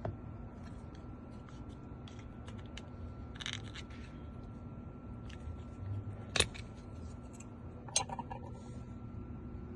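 Small metal clicks and scrapes from prying the cover off a Hyundai Sonata lock cylinder by hand, with two sharper clicks about six and a half and eight seconds in.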